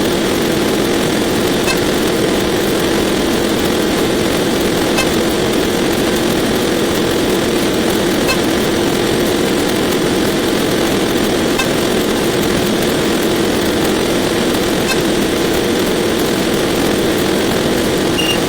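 Dense, steady drone made of many counting sound effects sped up 64 times, blurred into one continuous engine-like noise, with faint clicks every few seconds.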